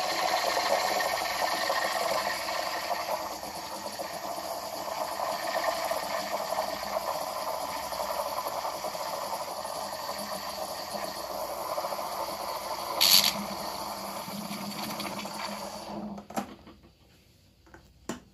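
Espresso machine steam wand frothing milk in a metal pitcher: steady hissing and gurgling, with a brief sharp louder spurt near the end. The steam cuts off, followed by a couple of clicks.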